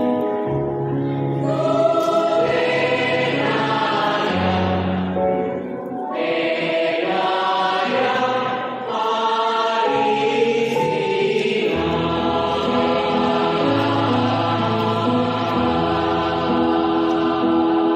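Mixed choir of young women and men singing in parts, holding long chords, with short breaks between phrases about six and nine seconds in.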